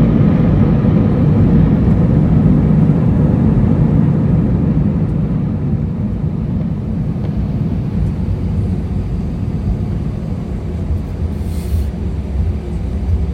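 Airliner cabin rumble just after landing, a steady low roar of the jet's engines and airframe that slowly eases off as the plane slows.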